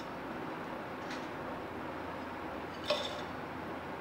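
Kitchenware clinking once, short and ringing, about three seconds in, with a faint tap about a second in, over a steady faint hiss.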